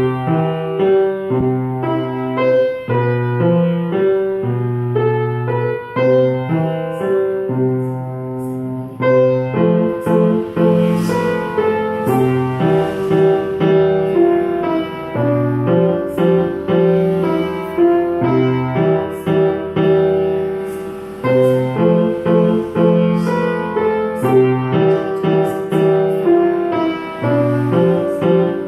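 Solo piano playing a barcarolle: a repeating low bass accompaniment under a melody, easing off briefly about eight seconds in, then fuller again.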